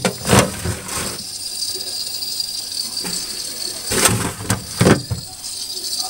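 Plastic food containers knocking and rattling as they are handled in a fridge, in a few short bursts, the loudest about four and five seconds in, over a steady hiss.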